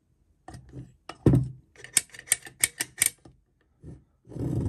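A run of sharp metallic clicks and taps, about three a second near the middle, with one heavier knock about a second in: a steel bolt and small parts handled against a Briggs & Stratton engine's aluminium crankcase cover. A softer rustle of handling comes near the end.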